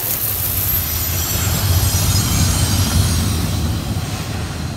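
A steady low rumble with thin, high-pitched squealing tones above it, fading gradually over the last couple of seconds.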